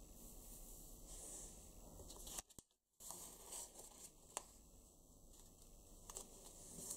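Faint rustling and crinkling of a square sheet of paper being handled and folded by hand, with a few soft taps. The sound cuts out completely for about half a second a little before the middle.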